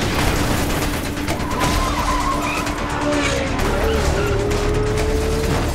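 Action-film car-chase sound mix: tyres squealing long and steady and car engines running, with cars crashing and tumbling on the road, under film score music.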